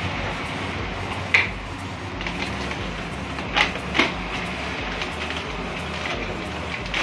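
Steady background rumble with a few short sharp clicks or taps: one a little over a second in, two close together mid-way, and a fainter one at the end.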